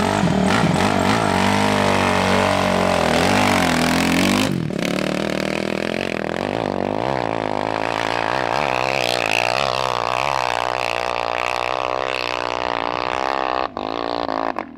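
Dirt bike engines revving close by for the first few seconds. The Kawasaki KX450F's four-stroke single-cylinder engine then revs hard up a steep hill climb, its pitch rising and falling with the throttle.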